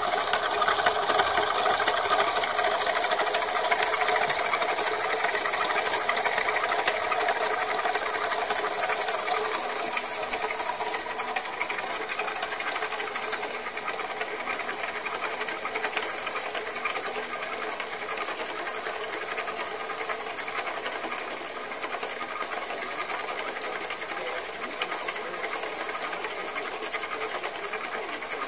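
Homebuilt Searl SEG machine replica running: three magnetic rollers roll around the ring, driven by reed-switched pulse coils, with a steady rapid mechanical whirring clatter. It is surging and grows gradually quieter.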